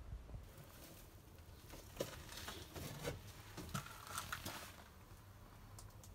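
Faint rustling with scattered light clicks and taps, clustered between about two and five seconds in, from the camera being handled and moved about.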